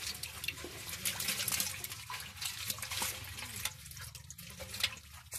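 Live eel-like fish wriggling in a container of muddy water, making a steady wet splashing and squelching with many small clicks that eases off near the end.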